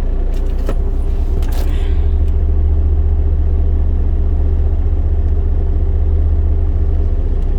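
Fuel tanker truck's diesel engine running with a steady low rumble, heard from inside the cab, growing a little louder about two seconds in.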